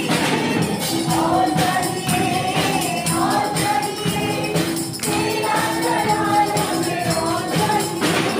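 A congregation singing a worship song together over a shaken tambourine and hand clapping, at a steady level.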